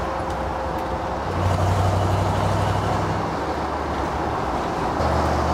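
The 1967 Ford F100's modern V8 pulling the truck along the road, a steady low engine drone over road and wind noise, its note shifting about a second in and again near the end.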